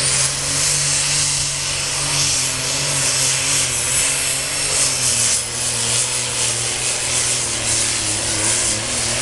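Super Stock pulling tractor's turbocharged diesel engine at full power, dragging the weight sled down the track: a loud, steady engine noise with a high turbo whine over it.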